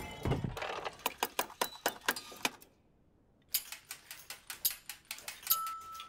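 Mechanical wooden toys clicking and clacking in an uneven rhythm, stopping for about a second midway, then starting up again.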